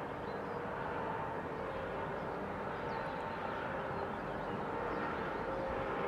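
Steady rumble of distant road traffic, with a few faint, brief high bird chirps over it.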